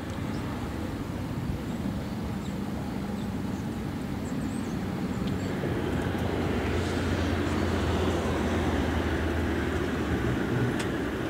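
Lamborghini Gallardo Spyder's V10 engine idling: a steady low drone.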